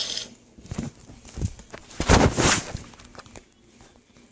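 Handling noise: a few light knocks, then a louder rustling, scraping noise of under a second about two seconds in, as a slime and its container are handled on a table.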